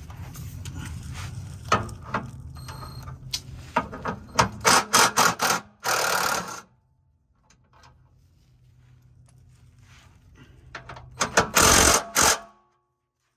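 Handheld power tool run in a string of short bursts, removing the fasteners of a car's under-engine skid plate, over a steady low hum; after a lull, another cluster of bursts comes near the end.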